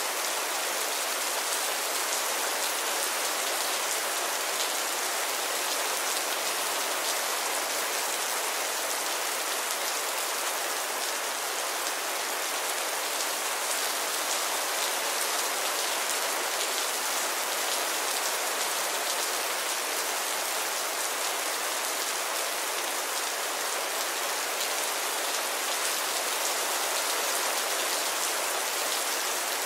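Steady rain falling: an even hiss of countless drops with faint scattered patters, no thunder.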